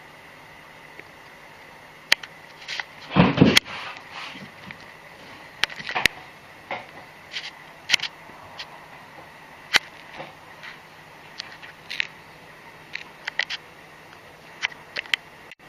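Scattered light clicks and taps at irregular intervals, with a heavier knock about three seconds in.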